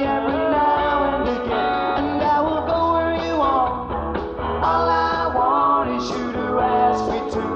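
Live rock band music: a full band playing, with a melodic lead line that slides in pitch over a steady bass and rhythm.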